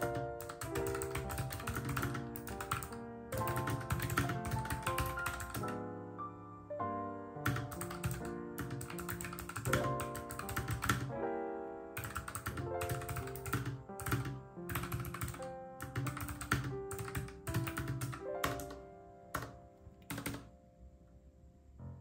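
Rapid typing on an external Bluetooth keyboard with low-profile keys, a quick run of key clicks that thins out and stops near the end, over background piano music.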